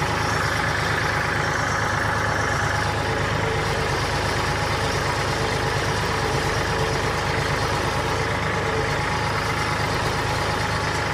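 Tractor engine running steadily, an even low firing rhythm with no change in speed.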